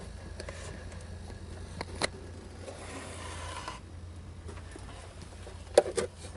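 Light handling noises: a brief scrape and a few sharp clicks and taps, the loudest cluster near the end, over a steady low hum.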